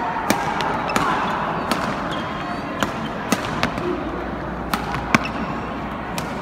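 Badminton rackets striking a shuttlecock in a fast men's doubles rally: a string of sharp hits, irregularly spaced about half a second to a second apart, over the steady hubbub of a sports hall.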